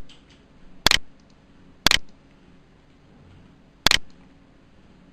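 Computer mouse clicking: sharp single clicks about a second apart, with a two-second pause before the last, and a few faint ticks in between.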